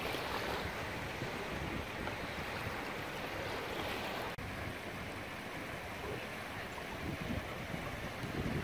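Small waves of a calm sea washing onto a sandy beach, with wind rumbling on the microphone. The sound drops out for an instant about four seconds in.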